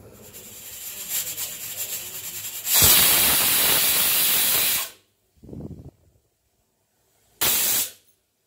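Premier pressure cooker letting out steam: a hiss that builds over about three seconds into a loud, steady rush and then cuts off. A short lower puff and one more brief hiss follow. The cooker is venting its pressure so it can be opened.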